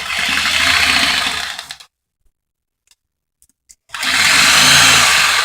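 Chicago Electric corded reciprocating saw with a rotating handle running in two bursts of about two seconds each, with a short pause between, as it cuts through pumpkin.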